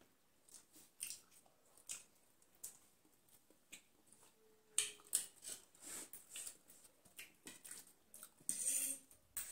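Close-miked eating sounds: chewing and biting into chicken sausage, a string of short wet mouth clicks and smacks, with a longer one near the end.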